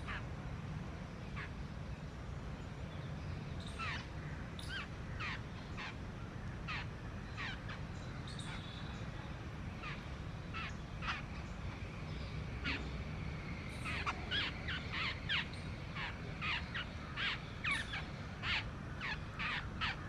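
Short, sharp chirping calls of small birds and palm squirrels feeding, each sweeping down in pitch, repeated a few times a second and coming thicker in the last several seconds, over a steady low rumble.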